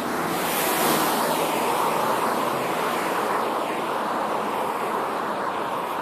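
Road traffic going past: a steady rush of tyre noise that swells about a second in and holds.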